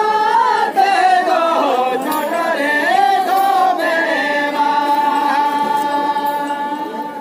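A group of voices singing a Santali traditional song in unison, the melody gliding up and down, then settling into one long held note about halfway through.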